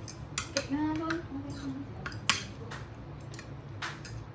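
Metal spoon clinking and scraping against a ceramic bowl while eating noodles, a few sharp clinks with the loudest about two seconds in. A brief hummed voice sound comes near the start.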